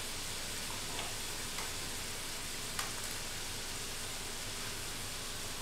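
Ground beef sizzling steadily as it browns in a cast iron skillet, with a few faint clicks over the frying, the sharpest about three seconds in.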